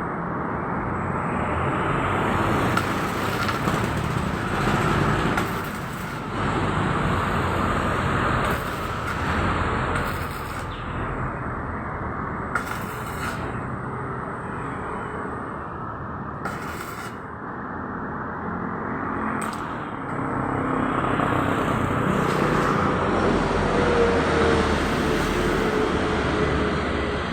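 Electric arc welding: the arc crackles and hisses steadily, with irregular sharp pops, while a chair frame is repaired.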